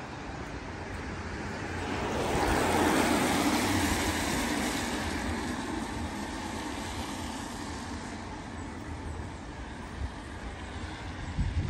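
A car passing on a wet road: tyre hiss swells about two seconds in, peaks, then fades away as the car moves off, over a low steady hum of distant traffic.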